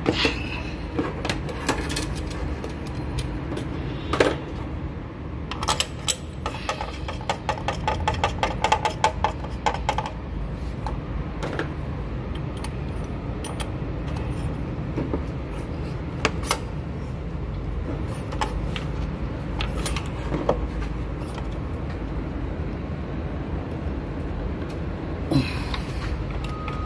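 Metal clinks and rattles of a spark plug socket and T-handle wrench worked in the spark plug wells of a Mitsubishi Lancer engine, with a quick run of clicks about six seconds in and scattered single clicks, over a steady low background rumble.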